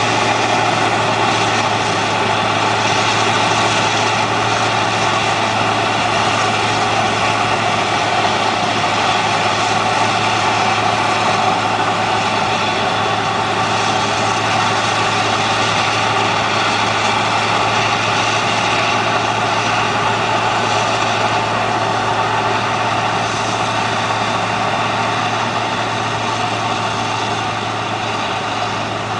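Self-propelled forage harvester running under load as it cuts and chops maize for silage: a loud, steady drone of engine and chopping machinery, growing slightly fainter near the end.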